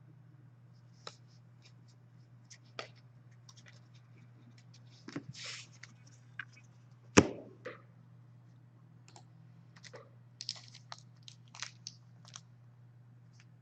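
Hockey trading cards and packs being handled and sorted: scattered light clicks and rustling scratches, with one sharper knock about seven seconds in, over a steady low hum.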